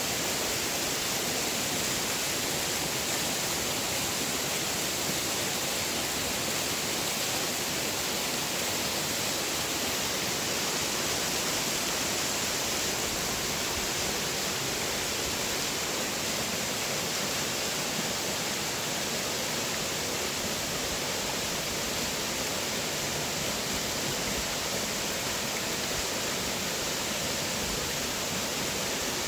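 Steady rush of creek water falling down a waterfall.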